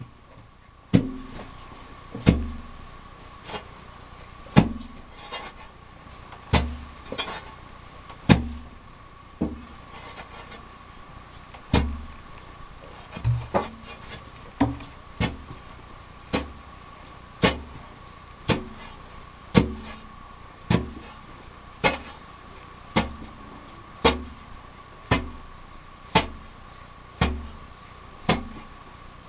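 A digging tool striking wet gravel at the bottom of a narrow mining shaft, about one blow a second, each a sharp hit with a low thud that rings briefly off the pit walls.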